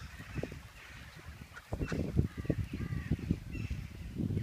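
A crow cawing several short times, over low rustling and thumps that get louder about two seconds in.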